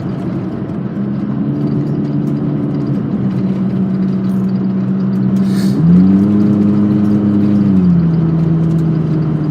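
Mark 1 Ford Focus engine, with an ECU tune and aftermarket intake and exhaust, running under way with a steady drone. Its pitch steps up about six seconds in, holds, and falls back about two seconds later.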